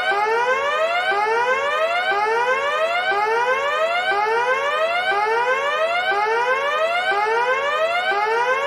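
Electronic alarm siren sounding steadily, its pitch sweeping upward over and over, about one rising sweep a second.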